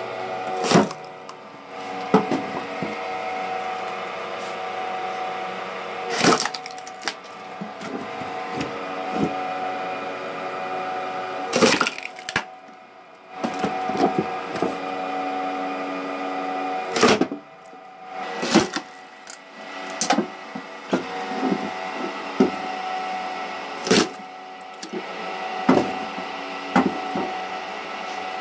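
Homemade motor-driven log splitters running with a steady hum while their spinning arms drive a wedge or hammer into logs. Each strike splits the wood with a loud sharp crack, about a dozen times at irregular intervals.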